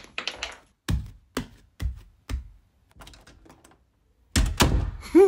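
A handful of short taps or knocks, about four of them evenly spaced half a second apart, then a louder, longer noisy burst near the end.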